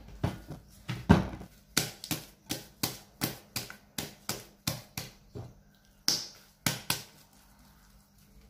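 Hands kneading and slapping a soft, risen yeast dough in a glass bowl, a steady run of sharp wet slaps about three a second that stops about seven seconds in. The dough is being punched down to knock the air out after rising.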